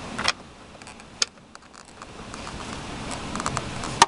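Plastic door-mirror trim cover being handled and pressed into place on the door, giving a few scattered clicks and taps of plastic, the sharpest click right at the end.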